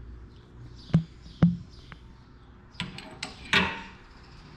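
A threaded neck-cup press tool working on a motorcycle frame's steering neck: two sharp metal clicks about half a second apart as the cups are drawn into the neck, then a cluster of clicks and a short metallic rattle near the end as the tool parts come loose.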